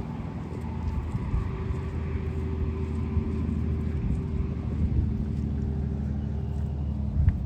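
An engine running at a steady low pitch, with a low hum that grows a little louder over the first second or two.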